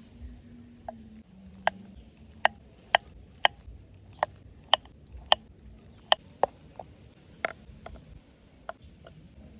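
About fifteen sharp knocks at an uneven pace, roughly one to two a second, like chopping or tapping on a hard surface.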